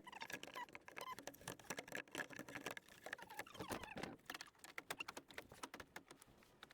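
Faint, quick, irregular clicking and scraping of a car's plastic air vent being slid back into place beside the battery under the hood.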